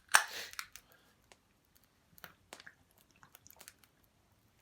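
Someone drinking after a toast: a short loud burst of noise right at the start, then quiet swallowing and mouth sounds with scattered small clicks.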